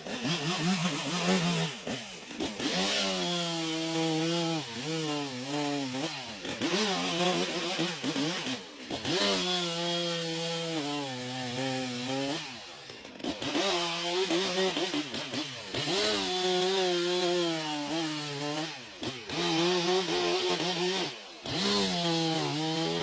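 Chainsaw running and cutting wood, its engine revving up and dropping back over and over as the cuts go in, with brief lulls where the throttle is let off.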